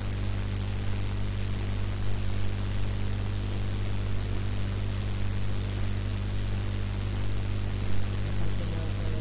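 Steady electrical hum with a strong low buzz and evenly spaced overtones, under a constant hiss: mains hum and noise picked up by an open microphone.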